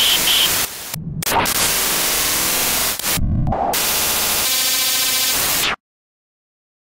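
Glitch-style TV static sound effect: loud bursts of white noise broken by brief dropouts, with a buzzing stretch near the end. It cuts off abruptly to silence about six seconds in.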